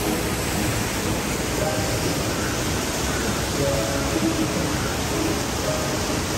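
Steady rushing of falling water from an indoor fountain, with faint music and voices mixed in.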